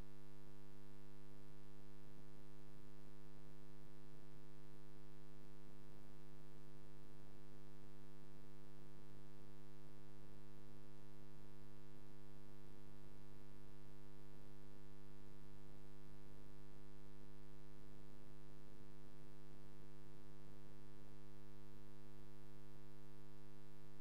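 Steady electrical hum from the stage sound system, a low buzz made of several even tones held without change, with no music or voice over it.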